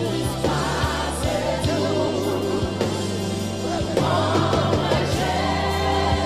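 Haitian Creole gospel worship song: a lead voice and a choir of voices singing together over a band with bass and drum hits.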